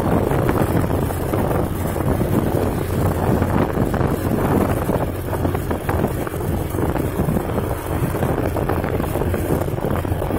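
Steady wind rushing over the microphone of a moving road vehicle, mixed with the low rumble of its running engine and tyres on asphalt.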